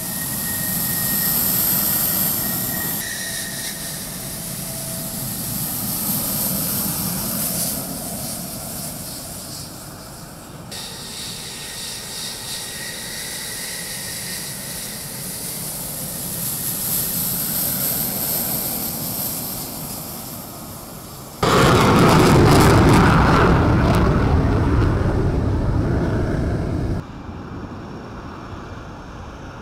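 F-16 fighter jet engines on the takeoff roll, a loud rushing jet noise with a high whine, swelling and fading as jets pass. The sound changes abruptly several times. It is loudest and deepest from about two-thirds of the way in until shortly before the end, then drops suddenly.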